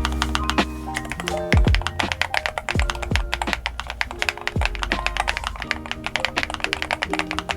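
Rapid typing on an ND75 LP low-profile mechanical keyboard, a dense run of key clicks, over background music with deep bass drum hits that drop in pitch.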